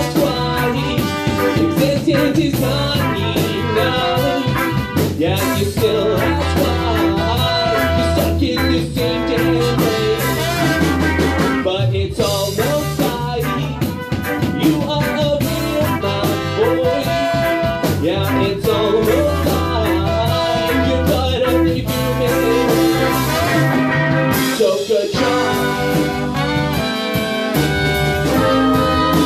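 Live band playing a song, with electric guitar, electric bass and a horn section including trumpet.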